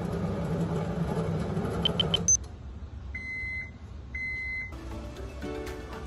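Microwave oven running with a steady hum that stops about two seconds in as its one-minute cooking cycle ends, followed by a few quick high beeps and then two longer beeps about a second apart. Background music with a beat comes in near the end.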